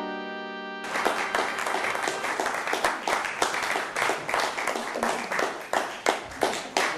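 Keyboard music cuts off about a second in, then a crowd applauds, a dense patter of many hands clapping unevenly.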